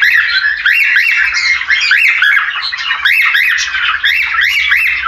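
Cockatiels chattering in a rapid, unbroken stream of overlapping rising-and-falling whistles and squawks. The calls are the breeding chatter of a mating pair, played to stir other pairs into courtship.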